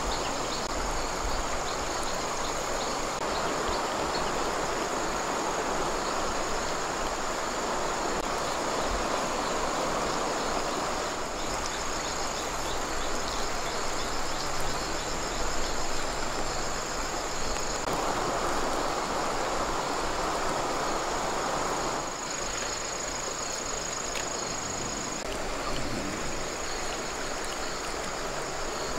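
Shallow water running and trickling steadily, with a thin, steady high insect drone above it. The water eases about three quarters of the way through while the insects carry on.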